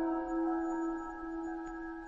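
Ambient meditation music: sustained, slowly fading chime-like tones with several pitches held together, a low note ringing throughout.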